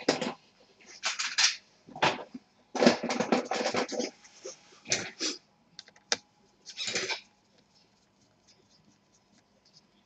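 Small hand tools and laptop parts being handled: a run of short clicks, taps and scrapes in clusters for about seven seconds, then near silence.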